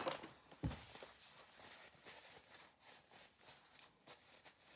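Faint handling noises at a kitchen counter: a dull knock a little under a second in, then light scattered clicks and taps.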